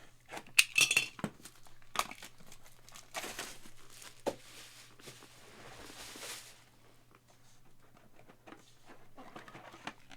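Crinkling and rustling of plastic wrapping, mixed with light clicks and taps of handling, with a longer stretch of crinkling in the middle.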